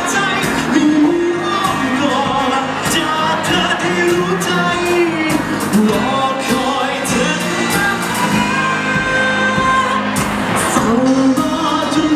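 Live pop band performance: a male singer's vocals over bass guitar, guitar and drums.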